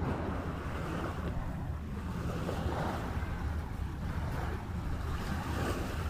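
Small waves washing onto a sandy shore, with wind rumbling on the microphone.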